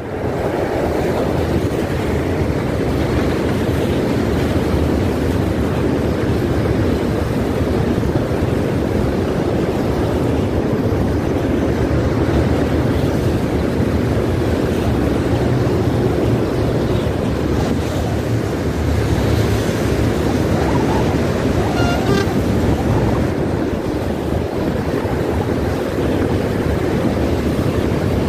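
Long freight train of tank wagons rolling past close by: a steady, loud rumble and rush of the wheels on the rails.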